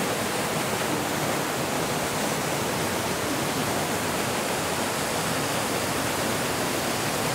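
Waterfall in a canyon: falling water rushing as a steady, even noise with no breaks.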